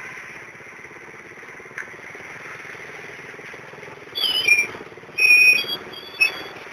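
Steady rumble of truck engines and road traffic. About two-thirds of the way through, three loud, shrill whistle blasts cut in, the first jumping in pitch, the second held on one note, the last very short.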